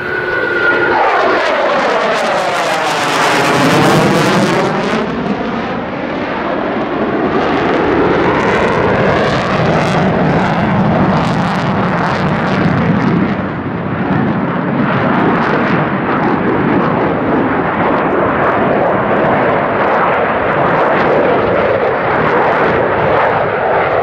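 F-15J Eagle fighter's twin jet engines, loud, as the jet maneuvers overhead. In the first few seconds the tone sweeps and phases down and back up as it passes, then settles into a steady jet roar.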